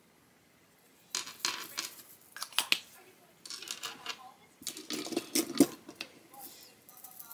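Makeup products and tools clattering and clicking as they are rummaged through and set down, in several bursts starting about a second in. The loudest clatter comes about five and a half seconds in.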